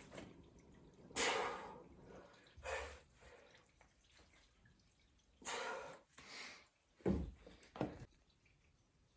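A person breathing out hard in four short, noisy breaths during a weightlifting set, followed by two dull thuds about seven seconds in.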